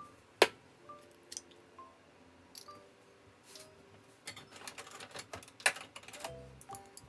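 Light background music with a simple melody, over sharp clicks and taps: one loud click about half a second in, a few scattered ones, then a quick run of clicks in the second half.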